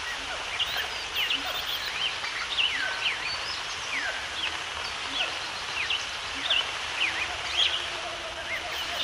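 Many birds chirping, with short overlapping calls sounding every fraction of a second over a steady background hiss.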